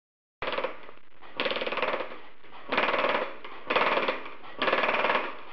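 Pneumatic air hammer fitted with a bigger power head, rapidly hammering stainless steel sheet to bend it. It fires in five short bursts of fast impacts, with a quieter steady sound between the bursts.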